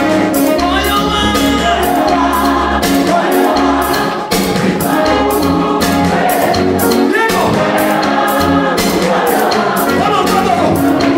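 A choir singing gospel music over a band with a steady beat.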